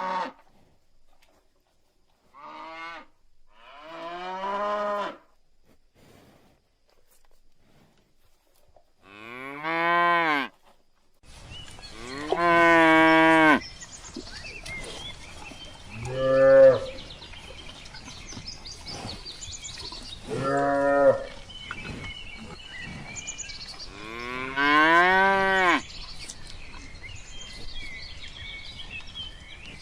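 Cows mooing: a series of about eight separate moos, some short and some drawn out over a second or two. About eleven seconds in, a steady outdoor background noise starts behind the later calls.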